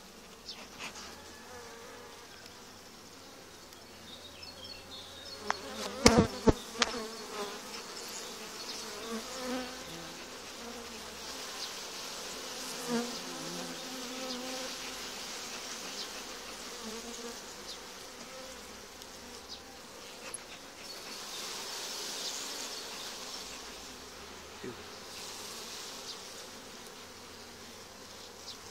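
Honeybees buzzing steadily around an opened hive and a bee-covered frame, with a few sharp knocks about six seconds in.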